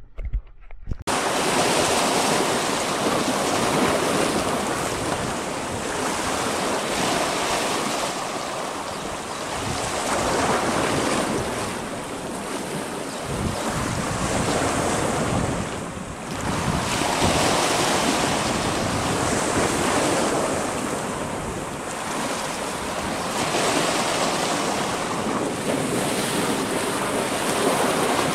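Sea waves surging and breaking against a rocky shore, swelling and easing every few seconds, with wind buffeting the microphone. The surf comes in loud about a second in.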